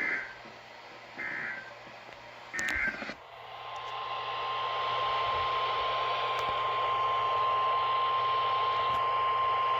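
NOAA Weather Radio receiver sounding a weekly test alarm over radio hiss. First come three short high data bursts, the SAME digital header, about a second apart. Then, about three seconds in, the steady 1050 Hz warning alarm tone begins and holds.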